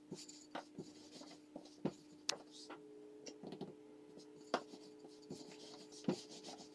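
Wooden rolling pin rolling out dough on a floured countertop: soft rubbing with scattered light knocks of the pin against the counter, over a faint steady hum.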